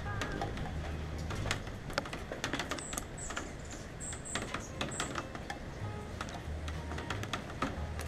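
Raindrops tapping irregularly on the camera housing, as a rapid scatter of sharp clicks, over soft background music with steady low bass notes. A few short high chirps come about three to five seconds in.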